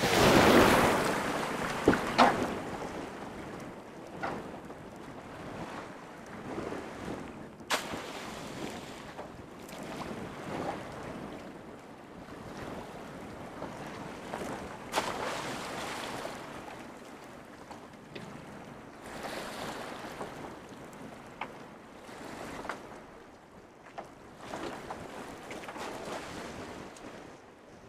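Wind buffeting the microphone and choppy sea washing around a small open boat, loudest in a gust right at the start, with a few sharp knocks scattered through.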